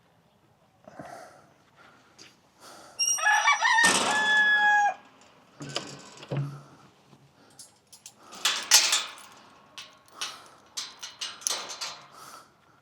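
A rooster crowing once, about three seconds in: a loud call of about two seconds that steps down in pitch and ends on a held note. A string of short, noisy sounds follows later.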